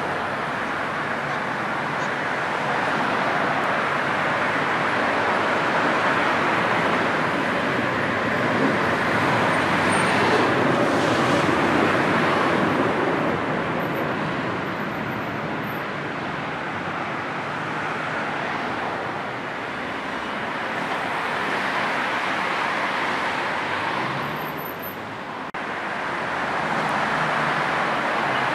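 Dense, slow-moving motorway traffic: a steady wash of car and van engines and tyre noise. It swells about a third of the way in and dips briefly near the end.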